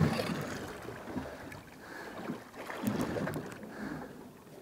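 Water lapping and slapping against a boat's hull, with wind on the microphone and a few irregular soft thumps.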